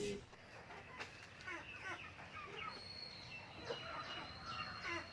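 Chickens clucking, a run of short quick calls, with a thin steady high tone running through the middle.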